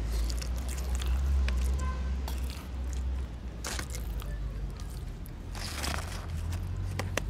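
A spoon scraping wet cat food out of a tin can onto a paper plate in a few short scrapes, with a cat chewing the chunks; a steady low rumble runs underneath.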